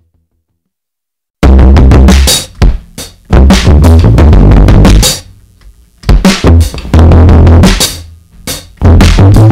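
Near silence, then about a second and a half in a loud backing track cuts in suddenly: a pop beat with a heavy bass drum, snare and hi-hat, pulsing in short phrases.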